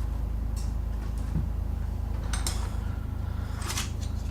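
Small metal lathe running with a steady low hum, with a few short scraping clicks from tools and parts being handled at the machine.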